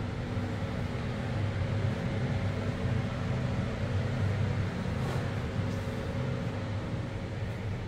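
Steady low mechanical hum over a rush of noise, with a faint brushing sound about five seconds in.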